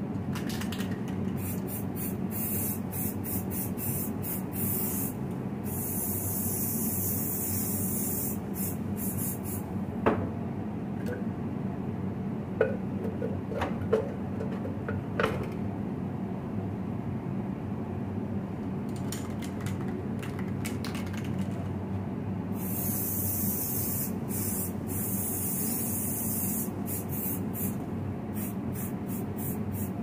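Aerosol spray paint can sprayed in repeated bursts of hiss, some short, some held for a couple of seconds. In a pause in the middle come a few sharp knocks and metallic clinks as the parts are handled, and a steady low hum runs underneath.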